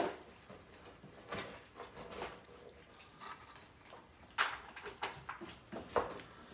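A group of cats eating wet food from bowls on a tile floor: scattered chewing and licking with the odd sharp knock of a bowl or can, the loudest about four and a half and six seconds in.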